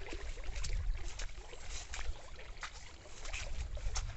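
Leafy rice plants rustling and swishing in quick, irregular brushes as they are pushed through, over a steady low wind rumble on the microphone.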